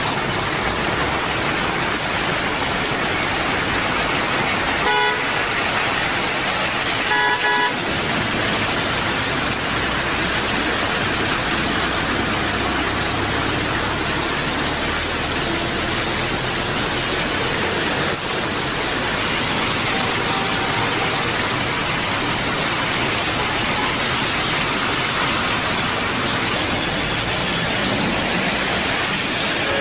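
Steady hiss of heavy rain and tyres on a flooded city street, with vehicle traffic passing through standing water. A vehicle horn toots twice, briefly about five seconds in and a little longer about two seconds later.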